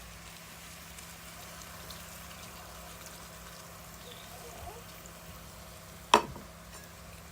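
Half a cup of vinegar being poured into a cooking pot: a faint, steady liquid sound, with one sharp knock about six seconds in.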